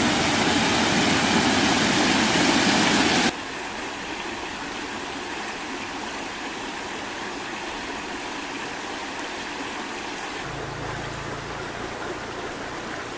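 Small waterfall splashing into a shallow rocky creek pool, a loud steady rush. About three seconds in it cuts to a quieter, steady flow of running water.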